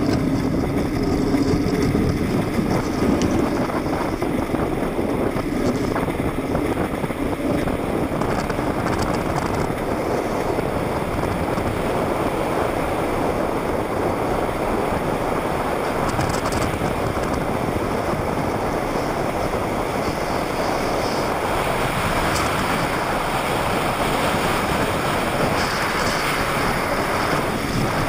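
Steady rush of wind and rolling road noise from a pedal go-kart with hard plastic wheels running fast downhill on asphalt. A low hum fades out in the first few seconds.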